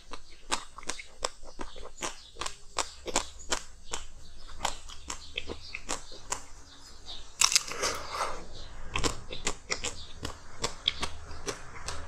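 Ice being bitten and chewed: a fast run of sharp crunches, several a second, with a louder crunch about seven and a half seconds in.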